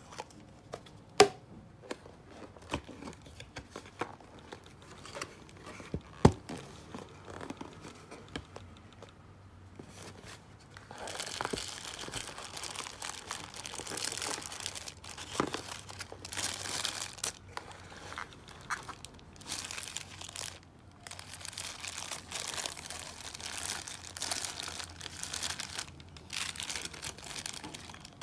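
A few sharp clicks and taps as a plastic lid is handled on a paper cup. After about ten seconds comes a long stretch of foil-lined paper sandwich wrapper crinkling and tearing as a wrap is unwrapped.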